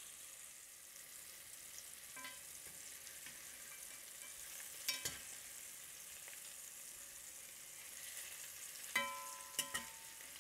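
Flour-dusted meatballs sizzling gently in a frying pan over a low flame, with four clinks of a utensil against the pan as they are turned; the last two, near the end, ring briefly.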